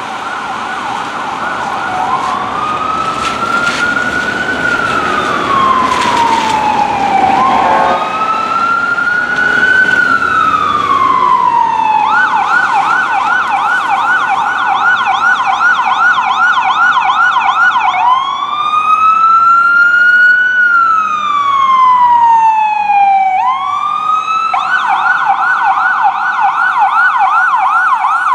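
Fire engine siren on a 2007 Spartan Gladiator / Smeal pumper responding code 3, switching back and forth between a slow rising-and-falling wail and a rapid yelp. It grows louder over the first several seconds as the truck approaches.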